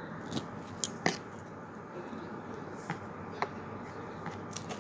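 Hands handling a wire-framed artificial-flower tiara: a scattering of small, sharp clicks and light rustles over faint background hiss.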